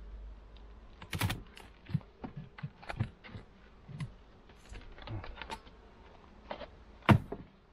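Wooden beehive parts being worked with a hive tool: irregular clicks, scrapes and knocks of wood on wood as frames and a box are pried and lifted, with one sharp wooden knock about seven seconds in.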